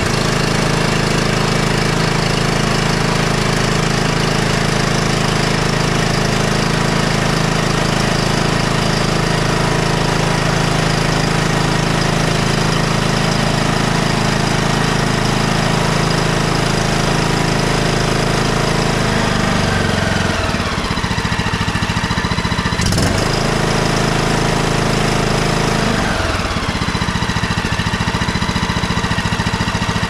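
Briggs & Stratton Intek 21 hp single-cylinder engine on a riding mower running steadily, firing again now that the no-spark fault is cured with a new ignition armature and spark plug. About two-thirds of the way through its speed drops, with a single sharp click, then picks back up near the end.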